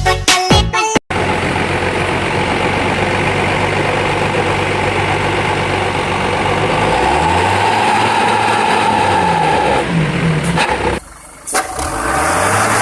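Bus engine running on the road, its pitch rising and falling twice as it pulls away or passes, over steady traffic noise. A music track cuts off about a second in.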